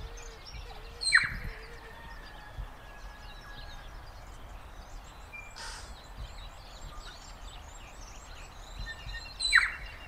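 Mixed birdsong of several species, chirps and whistles over a steady background hiss. Two loud calls sweep down in pitch, one about a second in, followed by a long held whistle, and one near the end.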